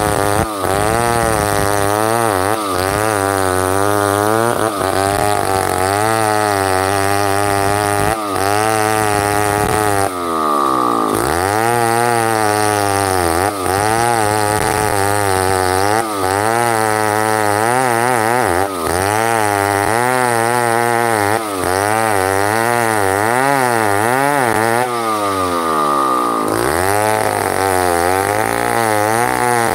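Two-stroke chainsaw ripping a block of ulin (Borneo ironwood) lengthwise into boards, its engine speed wavering constantly up and down under the load of the cut. Twice it drops briefly to a lower speed, then revs back up into the cut.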